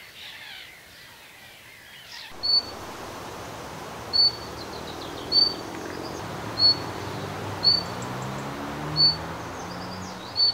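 Thrush nightingale giving a single short, high whistled call about every second and a quarter, seven times, over steady background noise. For the first two seconds, small birds twitter faintly.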